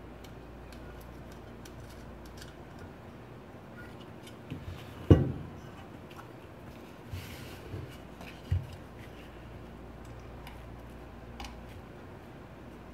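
Hands handling and opening a small black box of Stirling engine kit parts. There is one sharp knock about five seconds in, then a few lighter knocks and faint clicks as a black metal frame piece is lifted out.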